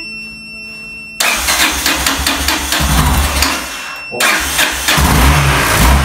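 Yamaha XT600E's single-cylinder four-stroke engine cranked on its electric starter, powered by a supercapacitor jump starter because the battery is flat, with the choke pulled. It cranks rapidly for about three seconds and stops briefly, then cranks again and catches, running steadily from about five seconds in.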